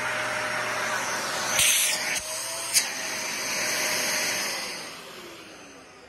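Dyson Ball Animal 2 upright vacuum cleaner running, with a brief louder rush of suction about one and a half seconds in and a sharp click a little later. Near the end it fades away with a falling whine as the motor winds down after being switched off.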